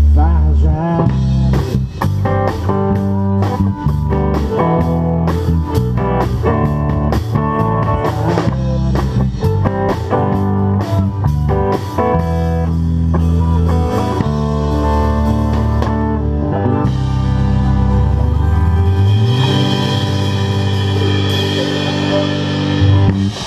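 Live rock band playing: drum kit, bass and guitars in a driving passage. It ends the song on a long held chord with cymbals washing over it in the last few seconds.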